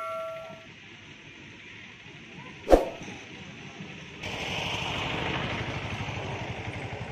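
Subscribe-button animation sound effects: the ringing tail of a notification bell chime fading out, then a single sharp click about two and a half seconds in. From about four seconds in, outdoor background noise with a low, fast-pulsing engine rumble.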